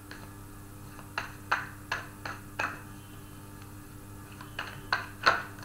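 A deck of tarot cards being shuffled and handled by hand: a run of short, sharp clicks, about five in the first half and three more near the end, over a faint steady hum.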